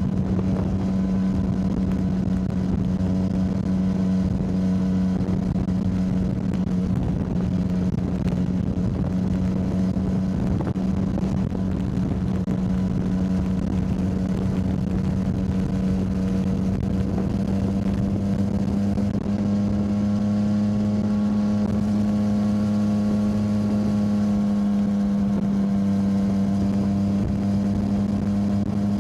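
Yamaha motorcycle engine running at a steady cruising speed, a constant engine note that rises slightly in pitch about two-thirds of the way through.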